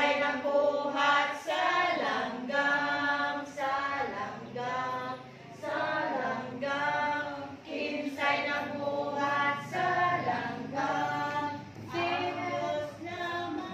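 A class of children singing a song together, led by a woman's voice.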